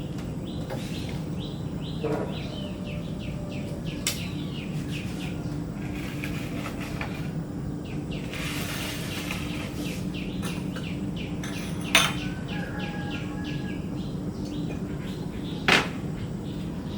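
Small birds chirping in quick runs of short falling notes over a steady low hum. Two sharp knocks stand out as the loudest sounds, one about two-thirds of the way through and one near the end.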